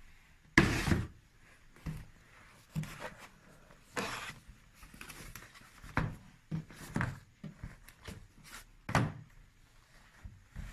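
Handling of the unboxed items and packaging: a series of irregular knocks, thumps and rustles, the loudest about half a second in.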